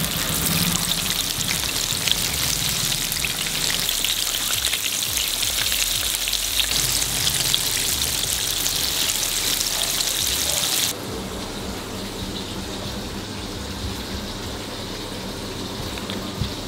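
Battered chicken pieces deep-frying in hot oil in a large iron kadai: a dense, crackling sizzle. It cuts off abruptly about eleven seconds in, leaving a quieter steady background.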